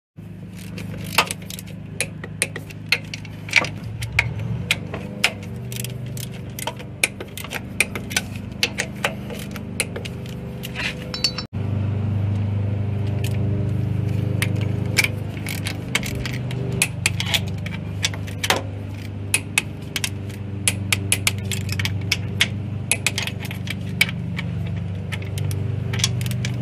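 Wrench and ratchet clinking and clicking on metal engine fittings, many sharp ticks, over the steady hum of a lawn mower engine running in the background.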